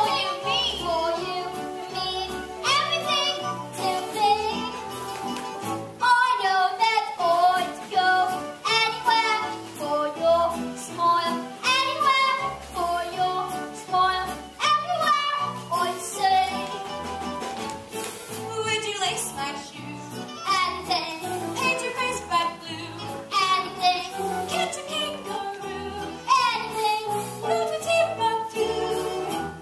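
A young stage cast singing a lively ensemble show tune together, with instrumental accompaniment and bass notes underneath.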